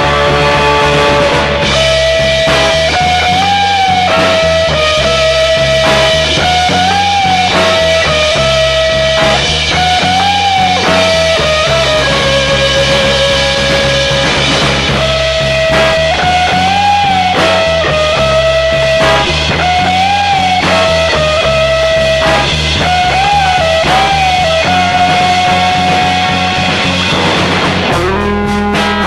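Instrumental rock song from a home four-track cassette recording: a held lead melody line that rises and falls over bass and drums. Near the end it sweeps into a new section of strummed guitar.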